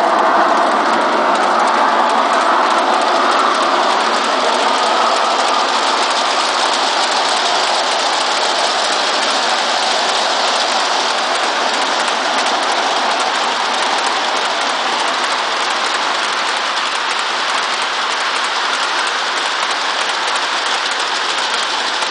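Long G-scale garden-railway freight train rolling past on its track: a dense, steady clatter of many wagon wheels on the rails, easing a little toward the end as the last wagons go by.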